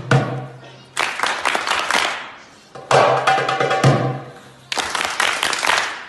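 Darbuka (goblet drum) played by hand in phrases of about a second and a half, each a flurry of fast strokes and rolls with deep bass strokes, separated by short pauses.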